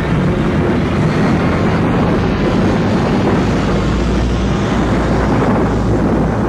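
Audio-drama sound effect of a crippled spaceship coming down for a crash landing: a loud, steady rushing noise with a low rumble underneath.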